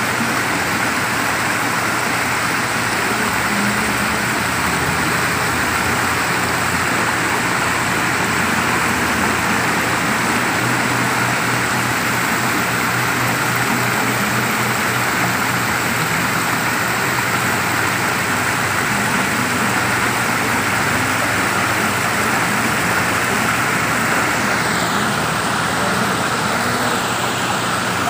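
A small rocky garden stream rushing steadily over its little cascades.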